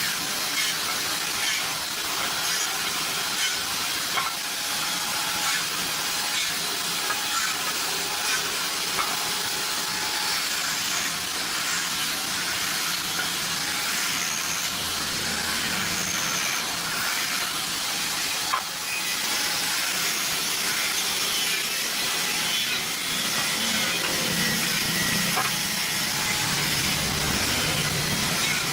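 Steady hissing noise of a woodworking machine running, with faint scattered clicks.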